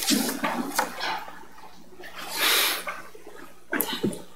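Rustling and shuffling of people moving and settling into a pew, with a few soft knocks and one longer hiss a little past the middle.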